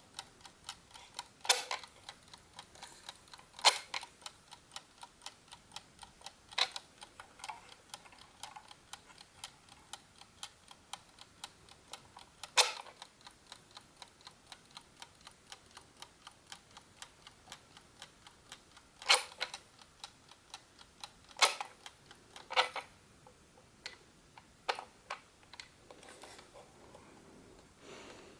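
Clockwork of a GARDE classic wooden chess clock ticking rapidly and evenly with its back open. Several louder clicks are scattered through it as the start/stop levers and mechanism are handled.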